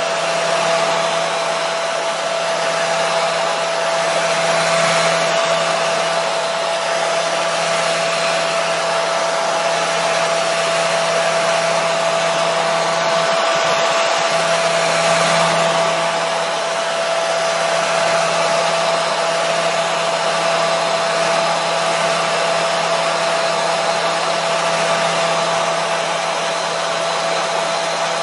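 Hair dryer running steadily: an even rush of blown air with a steady whine from its motor and fan, played as soothing white noise for a colicky baby.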